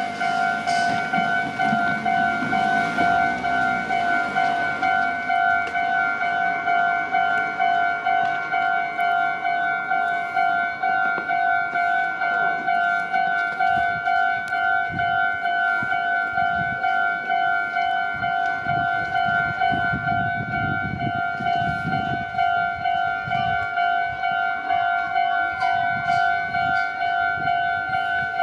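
Japanese railway level-crossing alarm ringing: an electronic bell striking one steady, bright tone over and over, several dings a second, as the crossing warns of an approaching train.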